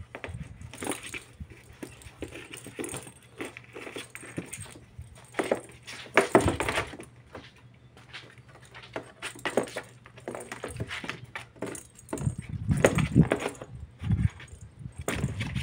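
Kitten playing with a plastic lattice cat ball in a cardboard box: irregular jingling and rattling of the ball, with paws and ball scrabbling and knocking on the cardboard, loudest about six seconds in and again around thirteen seconds.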